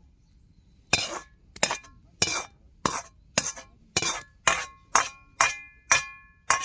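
Metal utensil striking a wok over and over, about two sharp clanks a second starting about a second in, the later strikes leaving a short metallic ring.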